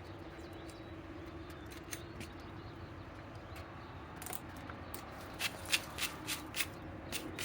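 Light handling sounds: scattered faint clicks and taps, then a quick run of about six sharp clicks a little over five seconds in.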